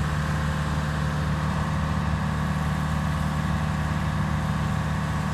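Engine of a 1976 Bantam C-166 excavator running steadily at idle.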